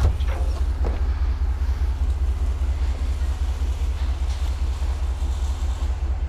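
Steady low rumble of an idling truck engine, running evenly.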